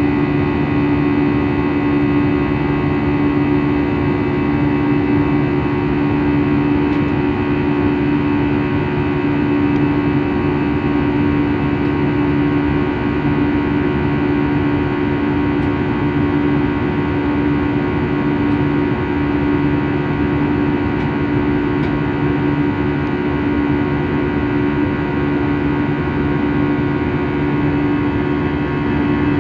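Steady aircraft engine drone heard inside the cabin in flight: a constant hum with several held tones over a rushing noise.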